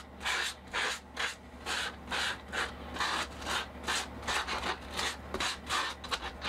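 Sandpaper rubbing on plywood by hand, smoothing a freshly trimmed blank in quick, even back-and-forth strokes, about three to four a second.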